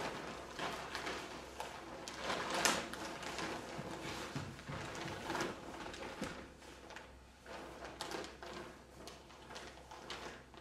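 Woven plastic checked bags rustling and scraping over the floor in irregular bursts as the bagged figures move and tumble, loudest a little under three seconds in, over a faint low hum.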